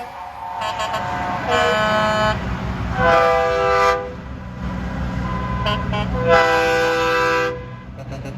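Vehicle horns honking in a series of separate blasts, several horns of different pitch, the longest lasting about a second. A low engine rumble runs underneath.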